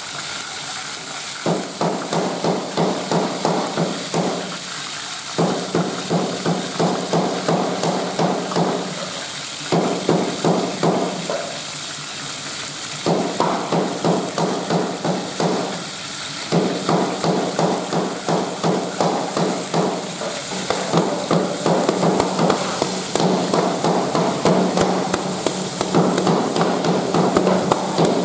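Cleaver chopping rapidly on a cutting board, mincing meat in runs of about four strokes a second with short pauses, over the steady sizzle of oil frying in a wok.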